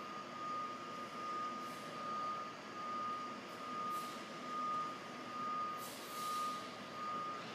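A vehicle's reversing alarm beeping in a steady, even rhythm, a little more than once a second, over the low running of its engine, while the vehicle moves the helicopter backwards.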